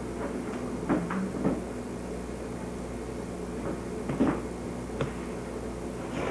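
Kitchen clatter: a handful of short knocks and clacks, like cupboard doors and dishes being handled, over a steady low appliance hum.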